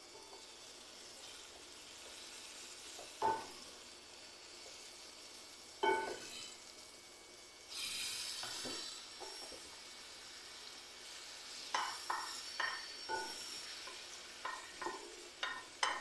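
Eggplant frying in oil in a pan, a steady faint sizzle that grows louder for a second or two about halfway through. A spatula knocks against the pan twice early on, then taps and scrapes it in a quick run of strokes near the end as the pieces are stirred.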